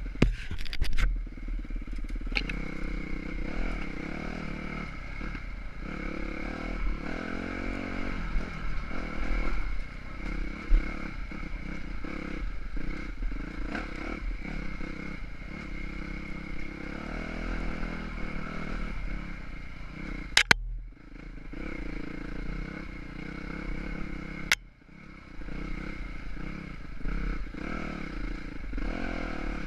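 Dirt bike engine running along a trail, its revs rising and falling with the throttle. Sharp knocks and clatter come through here and there, the loudest about 20 seconds in, and the engine briefly drops off just after that and again a few seconds later.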